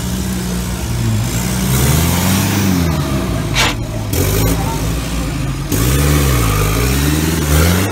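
Extreme-trial 4x4 buggy's engine revving up and down hard, again and again, as it claws over rough ground. A short sharp noise cuts in about three and a half seconds in.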